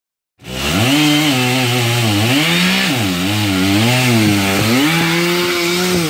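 Chainsaw running, starting about half a second in, its pitch repeatedly dipping and recovering as the engine bogs under load in the cut, then holding steadier near the end.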